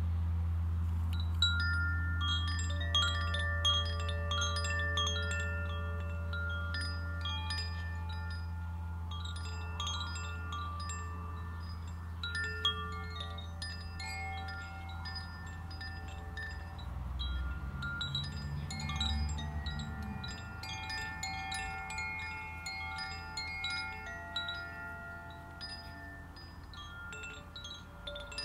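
Koshi chimes tinkling in irregular clusters of bright ringing notes, their clapper clicking against the tuned rods. Under them the deep hum of a tam-tam gong slowly fades, with a brief low swell about two-thirds of the way through.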